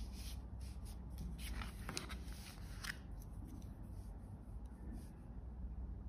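Faint handling sounds of a Chinese painting brush being picked up and worked against paper: light clicks and rubbing, most of them between about one and three seconds in, over a low steady hum.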